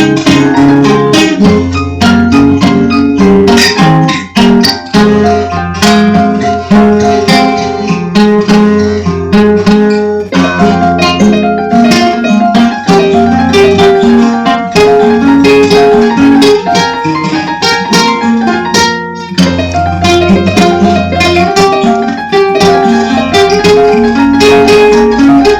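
Instrumental music: fast plucked guitar picking over a steady bass, with a brief drop-out about three quarters of the way through.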